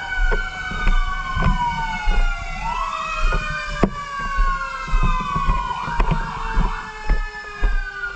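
Several fire-truck sirens wailing at once, overlapping: each rises over about a second and then falls slowly. A vehicle's rumble and scattered knocks run underneath.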